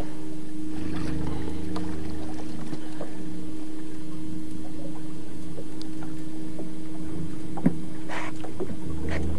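Boat engine running at low speed: a steady drone with a constant hum, and one sharp click near the end.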